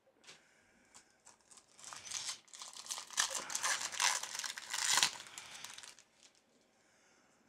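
Foil Pokémon booster pack wrapper crinkling and tearing as it is opened by hand and the cards are pulled out. The rustling starts about two seconds in, is loudest near the middle and dies away about six seconds in.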